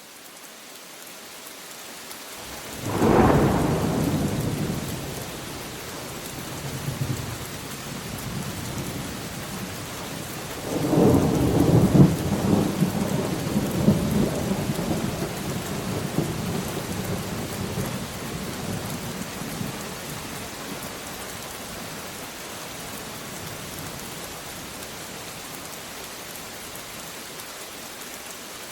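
Steady rain with thunder: a sudden thunderclap about three seconds in that rolls away, a weaker rumble a few seconds later, then a longer, louder peal of thunder rumbling from about eleven seconds that slowly dies away, leaving the rain alone.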